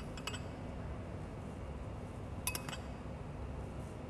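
A few light clinks of tableware being handled on a countertop: one near the start and a quick pair about two and a half seconds in, over a steady low room hum.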